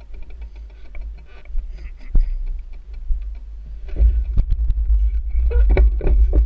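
Cyclocross bike ridden over bumpy grass, heard from a camera mounted on the handlebars: a low rumble of wind and vibration, with sharp knocks and rattles as the bike jolts. It gets louder and the knocks come more often from about four seconds in.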